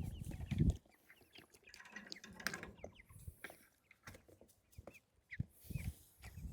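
Young meat chickens peeping and clucking in short scattered calls. A few dull low thumps come in the first second.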